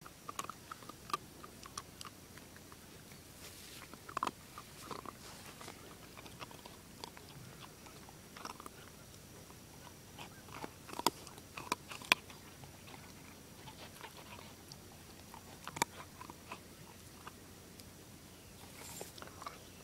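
German Shepherd puppy crunching and chewing hard treats: irregular sharp crunches, with a few louder ones past the middle.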